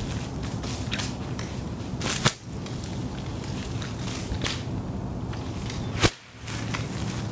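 A 30-foot chain whip being swung and striking: two sharp, loud cracks, about two seconds in and again about six seconds in, with fainter snaps between.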